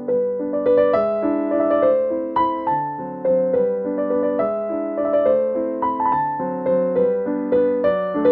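Background music: a light piano melody, with notes struck at a steady, unhurried pace.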